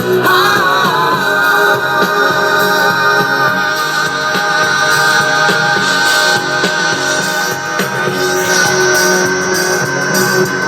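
Rock song playing: a wavering sung note in the first second or so, then an instrumental stretch of held, steady tones.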